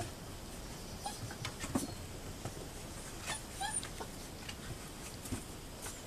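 Puppies giving a few short, high whimpers and yips while playing, with scattered light clicks and knocks.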